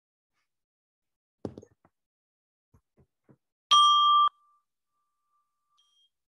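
A meditation bell struck once about three and a half seconds in: a clear ringing tone that cuts off abruptly after about half a second, then lingers faintly, fading in and out. A soft knock comes a couple of seconds before it.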